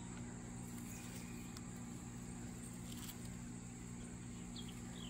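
Faint outdoor background: a steady high drone of insects over a steady low hum, with a few faint short chirps near the end.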